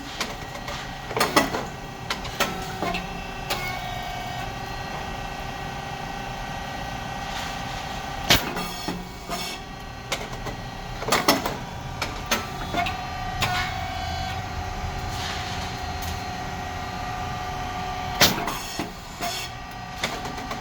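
SYP8080 popped rice cake machine running production cycles: a steady motor and pump hum under it, with a loud sharp pop four times as the heated mould opens and the rice cake puffs, and lighter mechanical clicks and clatter of the moving parts between.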